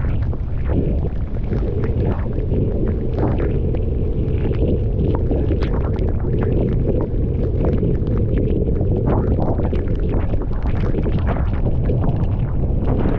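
Strong wind buffeting a GoPro action camera's microphone, a dense steady low rumble with scattered sharp clicks and rattles through it.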